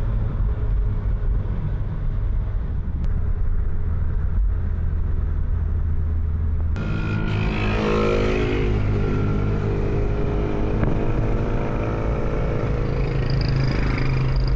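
Car engine and tyre noise heard from inside the cabin while driving, a steady low hum. About seven seconds in the sound turns brighter and busier, and an engine's pitch glides up and down.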